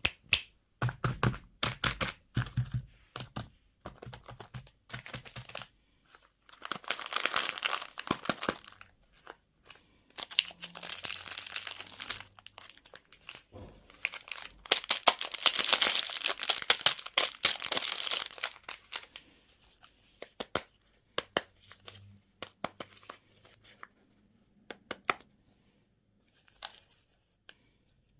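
Plastic and foil candy wrappers being torn open and crinkled by hand, in close-miked crackling spells with sharp clicks between them. The crinkling thins to scattered ticks in the last third.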